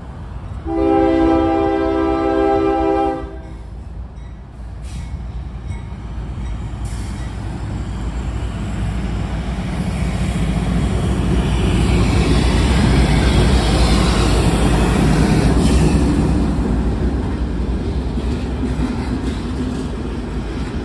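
GE diesel freight locomotive sounds one long horn blast of about two and a half seconds, about a second in. Its engine rumble then builds to the loudest point as it passes, easing into the steady rolling noise of loaded gondola cars going by on the rails.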